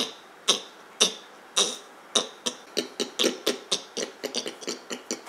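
Two people imitating pigs by voice: short grunting snorts, about two a second at first, coming faster and overlapping from about halfway through.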